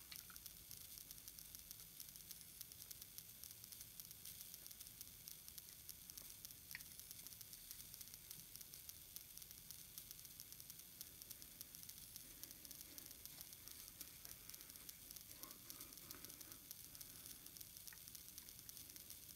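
Near silence: a steady faint hiss, with a few faint clicks as pliers work on the brass air valve to unscrew it.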